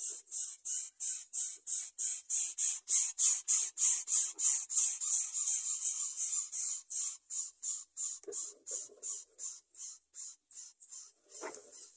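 Greater coucal nestlings begging for food: a fast, even series of hoarse hissing calls, about four a second, growing louder and then fading toward the end. A brief lower-pitched sound comes about half a second before the end.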